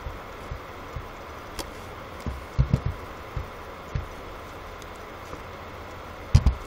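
Scattered computer keyboard and mouse clicks over a steady microphone hiss, with a quick run of clicks about two and a half seconds in and a close pair near the end.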